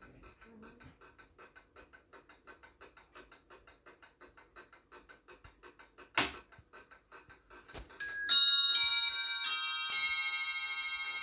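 A c.1770 Thomas Best quarter-striking clock movement ticking faintly and quickly, about four ticks a second, with a single clunk about six seconds in. About eight seconds in, its nest of Kieninger bells rings a quarter chime of about eight notes, which keep ringing and slowly fade.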